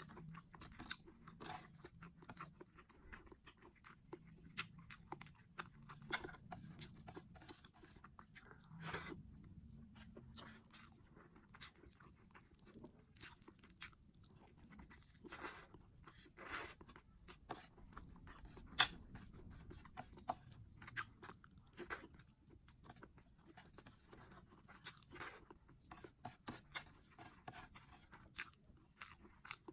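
A person chewing and crunching food close to the microphone, with many short, irregular crunches and clicks that keep coming throughout.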